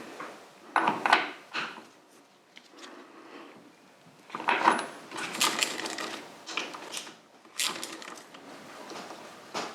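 Irregular metallic clinks and knocks of tools and metal parts being handled and set down, in clusters about a second in, around the middle and near the end.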